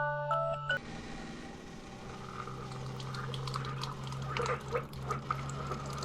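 The last notes of a short glockenspiel-like jingle, cut off under a second in, then a steady low hum with faint scattered clicks and hiss.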